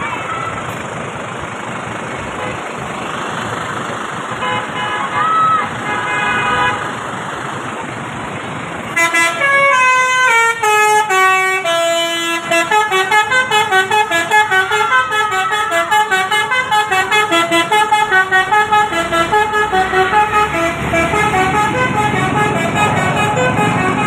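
Tour bus's multi-tone "telolet" musical air horn of the Basuri type playing a melody: about nine seconds in it starts with a descending run of notes, then goes on in quick repeated notes. Before that, road noise with a few short horn notes.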